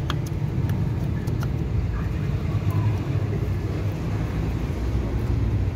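Steady low rumble of a vehicle engine running, with a few faint light clicks as the compressor's clutch coil is worked loose by hand.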